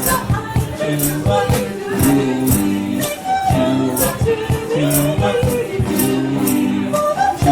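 Vocal group singing over a bass line, with hand percussion keeping a steady beat.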